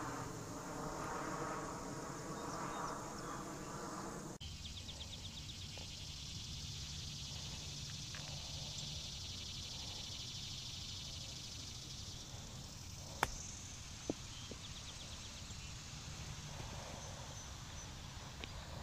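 Outdoor ambience with a steady mechanical hum that stops abruptly about four seconds in, then insects trilling faintly. About thirteen seconds in comes a single sharp click of a golf club striking a ball, followed a second later by a fainter tick.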